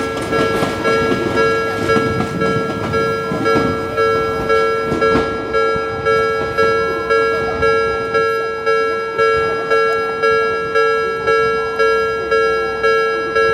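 Japanese railway level-crossing warning bell ringing steadily, about two strikes a second, each strike fading quickly. A passing train runs underneath for the first few seconds and dies away.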